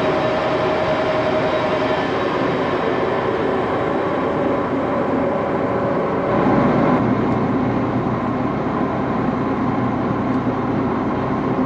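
Old metal lathe running with a steady mechanical rumble and hum. The sound shifts and swells briefly about six seconds in, then carries on steadily.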